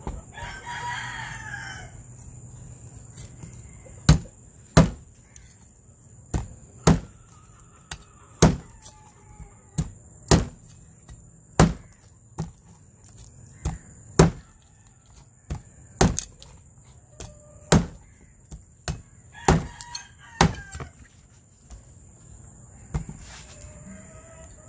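Meat cleaver chopping through a singed pig's trotter onto a wooden board: sharp chops, irregular, about one or two a second, starting about four seconds in. A rooster crows at the start and again past the middle.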